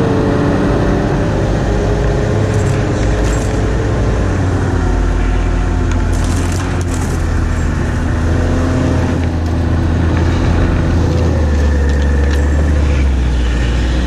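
Snowmobile engine running under way on a snowy trail, a steady rumble whose pitch eases down a little in the first few seconds and then holds.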